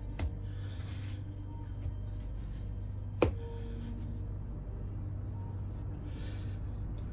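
Dough being handled on a wooden cutting board: two sharp knocks about three seconds apart, over a steady low hum.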